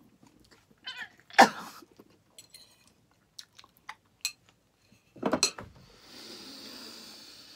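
A woman's wordless cries of disgust at a nasty taste, two loud ones about a second and a half in and about five seconds in, with small mouth and chewing sounds between. Near the end comes a steady rushing sound lasting about a second and a half.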